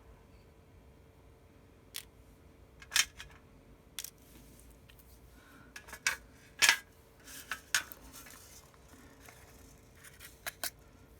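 Scattered light clicks and taps of small phone parts and tools being handled and set down while an iPhone is disassembled, over a faint steady hum.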